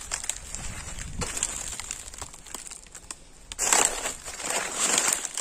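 Footsteps crunching and rustling through dry leaf litter, with two louder crunches about three and a half and five seconds in.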